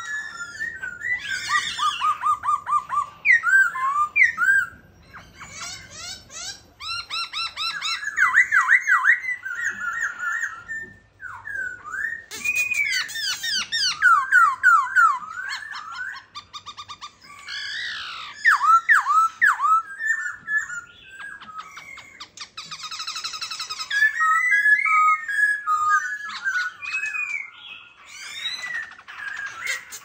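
Black-throated laughingthrush singing a long, varied song of loud whistled phrases, quick rising and falling notes and rapid trills, with short pauses between phrases.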